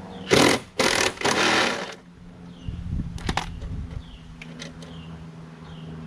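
Two short bursts of a power driver spinning off the 3/8 bolts that hold the mower's drive cover, followed by a few sharp metal clicks as the bolts and cover come loose.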